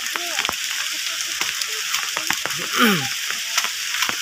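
Rain falling on an umbrella held overhead: a steady hiss with many small sharp ticks of drops hitting the canopy. A brief voice sound slides down in pitch about three seconds in.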